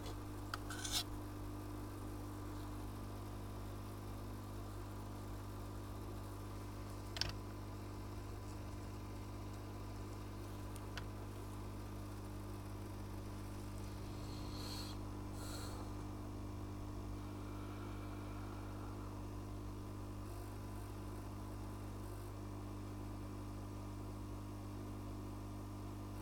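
Hot air rework station blowing with a steady whir, with a few short clicks on top, the loudest about a second in and about seven seconds in.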